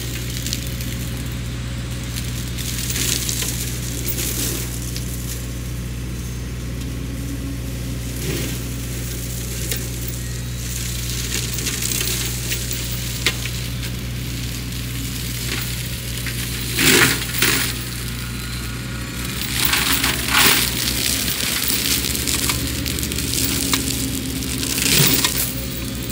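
Sany SY50U mini excavator's diesel engine running at a steady pitch while its Mongo flail mulcher shreds brush with a continuous crackling, crushing noise. There are a few louder bursts of shredding in the second half as the head bites into thicker growth.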